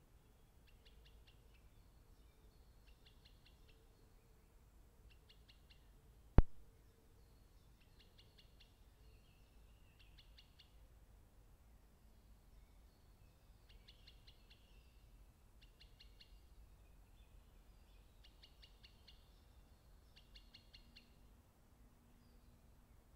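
A small bird calling faintly in short, rapid trills, repeated every second or two. One sharp, loud click comes about six seconds in.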